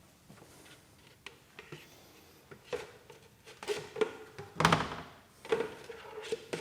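A few scattered knocks and short rustles of things being handled, moved and set down, quiet at first and busier over the last few seconds, the loudest knock a little under five seconds in.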